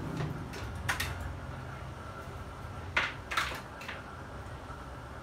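A few sharp clicks and knocks as cables are unplugged and an Android TV box is handled on a workbench: one about a second in, then two close together around three seconds. A low steady hum runs underneath.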